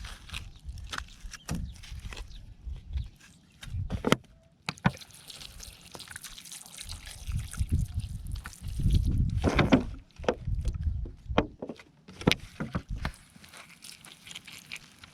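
Water sloshing and splashing, with scattered sharp clicks and knocks and bursts of low rumble, the strongest about two-thirds of the way through.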